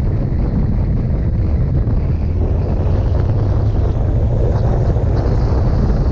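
Steady wind noise on the microphone of a camera riding on a moving motorcycle, over the drone of the engine and road noise.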